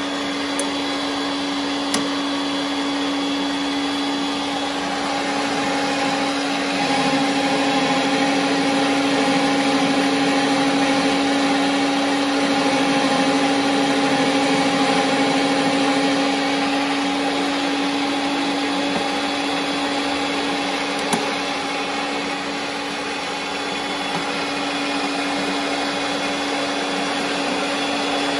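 Ridgid power threading machine running steadily as its die head cuts threads on conduit: a steady motor hum that grows louder from about seven seconds in and eases back after about sixteen seconds.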